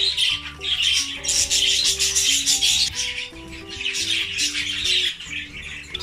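A large flock of budgerigars chirping and chattering continuously, over instrumental background music.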